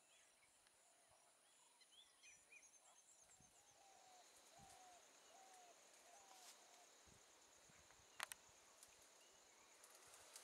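Near silence: faint outdoor background of distant birds calling, including a short run of about five repeated falling notes, over a faint steady high buzz. One sharp click about eight seconds in.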